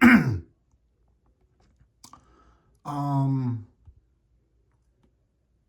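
A man's short wordless vocal sound, held on one pitch for just under a second, with a few faint mouth or lip clicks around it.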